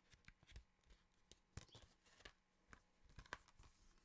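Faint, scattered clicks and rustles of a disc case and its paper cover insert being handled as the insert is taken out and flipped to its reverse side.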